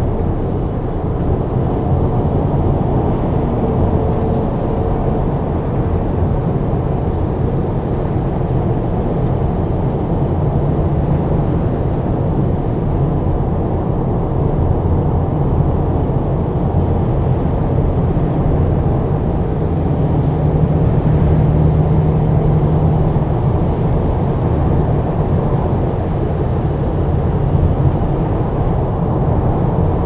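Steady tyre and road noise from a 2023 Tesla Model Y at highway speed: a deep, even rumble with no engine note, since the car is electric. It swells slightly about twenty seconds in.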